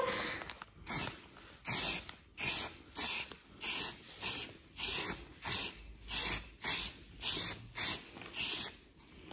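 Aerosol spray-paint can sprayed in about a dozen short, evenly spaced hissing bursts, roughly one and a half a second, as a base coat is dusted onto primed wooden cut-outs.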